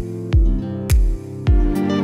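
Background music with a steady beat of deep thumps, about two a second, under sustained pitched tones.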